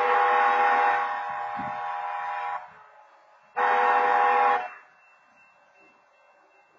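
BNSF locomotive's multi-note air horn sounding a long blast of about three seconds, then a short blast of about a second. Together they form the long and short notes of the long-long-short-long grade-crossing signal, blown because the crossing's wayside horns timed out.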